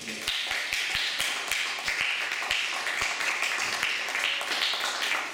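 Audience applauding: a dense clatter of many hands clapping that starts suddenly, with a few low thumps mixed in.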